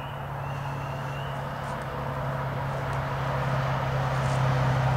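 A motor vehicle's steady engine hum and road noise, growing gradually louder as it approaches.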